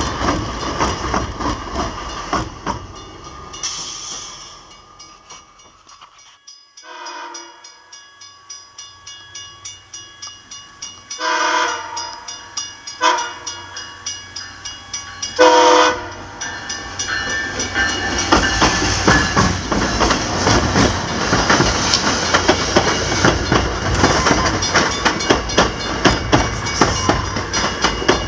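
MBTA commuter rail train sounding its horn for a grade crossing, four blasts in the long, long, short, long pattern, the last the loudest. It then rolls past, the double-deck coaches clattering rhythmically over the rail joints. It opens with an earlier bilevel train rolling by and fading out.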